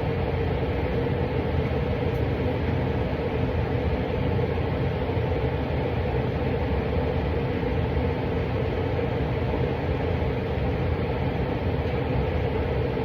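Steady low rumbling background noise with a constant hum, unchanging throughout.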